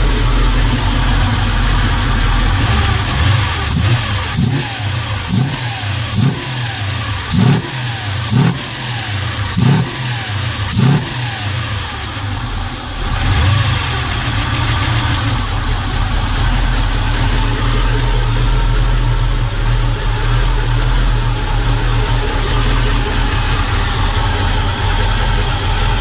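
Holden Commodore engine with a cammy exhaust note, freshly tuned carburettor, idling and then blipped with about eight quick throttle revs in a row, roughly one a second, before settling back to a steady idle.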